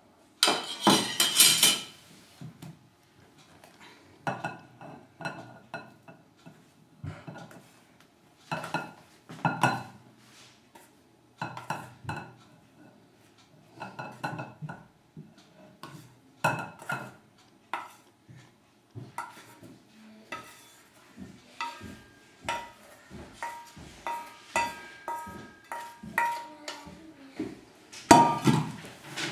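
Kitchenware clinking and scraping: a metal bowl and a spoon knock against a glass mixing bowl, a knock every second or two with a short ring after each, and louder clatters at the start and near the end.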